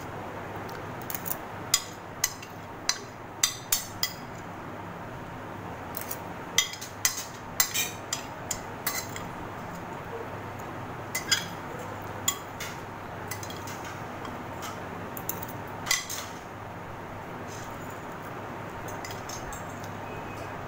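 Metal spoons and forks clinking and scraping against ceramic plates as children eat. The sharp clinks come in irregular flurries over a steady background hum, and thin out over the last few seconds.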